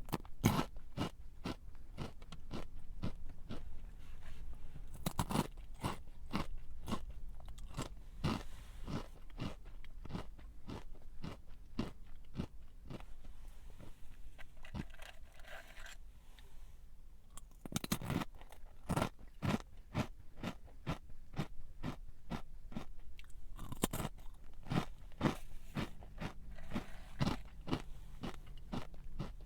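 A person chewing a snack close to the microphone, with sharp crunches coming about twice a second and a few louder bites a few seconds in, midway and later on.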